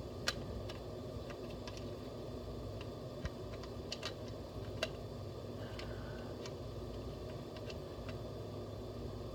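Scattered light clicks and taps of hard plastic G.I. Joe toy vehicle parts being handled and fitted together, over a steady low room hum.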